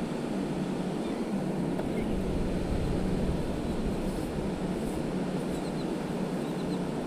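Steady wind and surf noise on the beach, swelling slightly and easing again.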